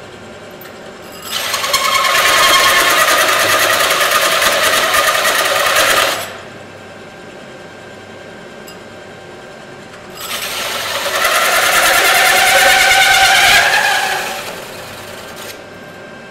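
A power saw cutting a steel bracket plate in two passes of about five seconds each, with a quieter steady noise running between them.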